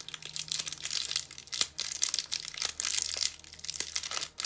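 Wrapper of a cinnamon leaf essential oil wax melt being opened by hand: rapid, irregular crinkling and tearing.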